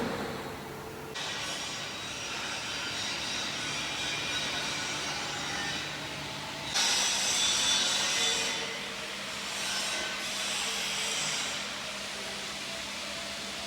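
Arc (stick) welding on cast iron with a 3.2 mm cast-iron electrode at about 90 A: a steady crackling, sizzling arc. It comes in about a second in and gets louder about halfway through.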